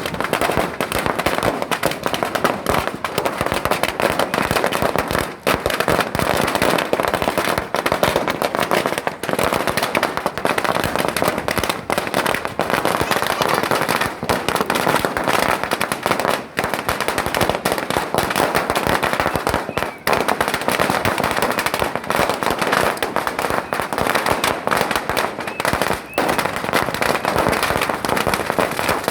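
Strings of firecrackers going off in a continuous, dense crackle of rapid pops without a break.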